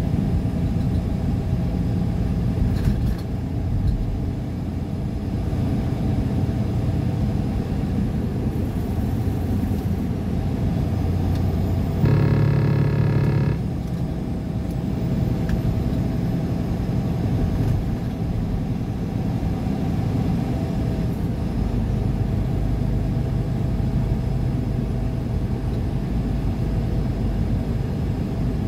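Steady road and engine noise of a car driving along a highway, heard from inside the cabin. About twelve seconds in, a steady pitched tone with many overtones sounds for about a second and a half.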